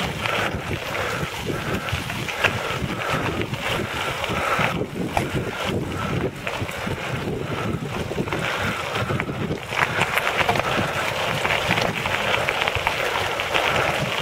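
Recumbent quad's tyres rolling over a loose gravel road, a steady crackling crunch, with wind buffeting the microphone.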